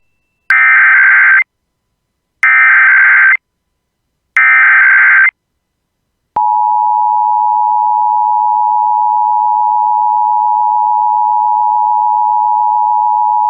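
Emergency Alert System SAME header: three bursts of screechy digital data tones, each about a second long. About six seconds in, a steady, unbroken attention tone starts and holds, opening a required monthly test.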